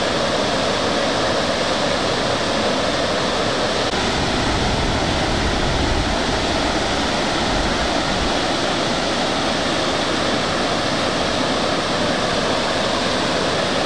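Waterfall pouring: a steady, even rush of falling water, with a low rumble swelling briefly around the middle.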